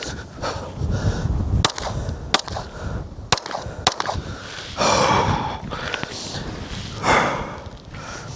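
Handgun shots during a timed shuttle drill: four sharp reports, two close together, then a short gap and two more about half a second apart. Two heavy breaths follow, about five and seven seconds in.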